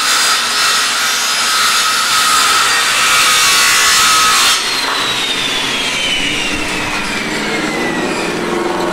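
A small powered tool's motor running with a steady whine and a loud rasping noise, switched off about four and a half seconds in, its whine then falling as the motor spins down.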